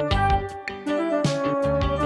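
Background music: instrumental track with sustained pitched notes and a steady beat.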